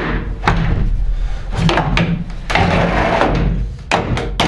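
Cedar cabinet door being worked into its opening: a series of wooden knocks and clatters, over a steady low hum.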